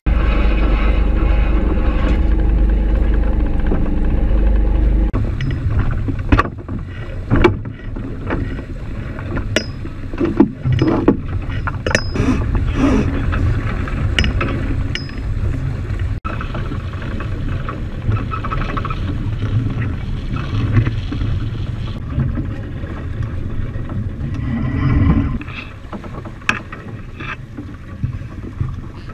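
Wind buffeting the microphone and water rushing along the hull of a small sailboat under way, with scattered sharp knocks and clicks.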